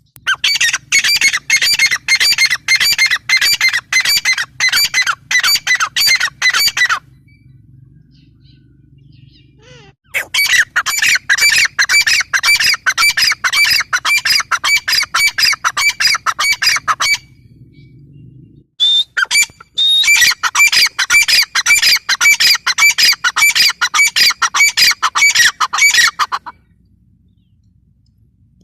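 Gray francolin calling: three bouts of loud, rapid, harsh notes repeated about three times a second, each bout lasting about seven seconds with short pauses between.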